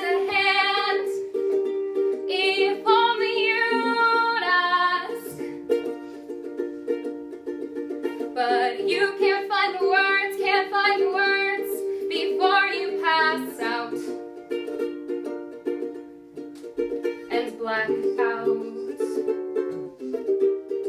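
Live solo song: a small string instrument strummed steadily in chords, with a singer's voice over it in phrases of a few seconds and short gaps between them.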